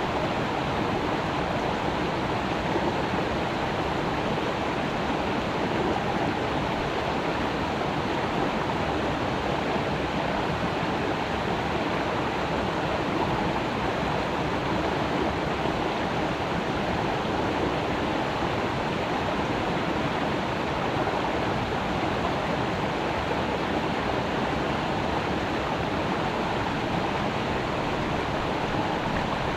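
Creek water running steadily over rocks, a constant rushing flow.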